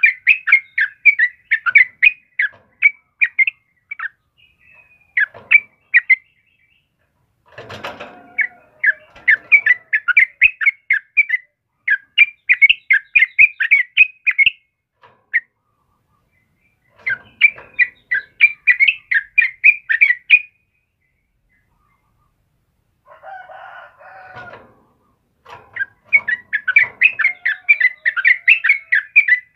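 Yellow-vented bulbuls chattering in a rapid, loud 'ropelan' song: fast runs of short notes at several per second. The runs come in bouts of a few seconds with short silent pauses between them, and rougher, lower calls come in twice, about eight seconds in and again around twenty-four seconds.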